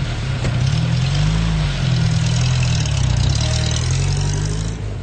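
UAZ-469 jeep's engine running just after starting as the jeep pulls away, its pitch rising and dipping once in the middle, then fading out near the end.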